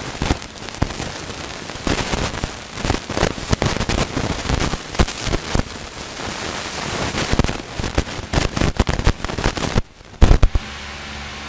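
Rustling, crackling and bumping picked up by a close desk microphone as a person moves past it, with two sharp loud knocks about ten seconds in, followed by a steady hiss.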